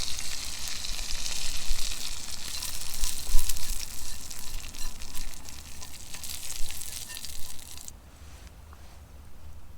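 Food frying and sizzling over a campfire, a steady hiss with scattered small crackles. It cuts off abruptly near the end, leaving a quiet outdoor background.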